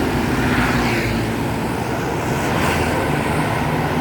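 Large bus's engine running loud and steady, a dense rumble with a rushing haze on top.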